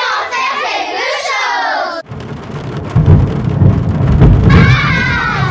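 Children's voices for about two seconds, then a sudden switch to a thunderstorm: loud rumbling thunder over a hiss of rain, with voices coming back in near the end.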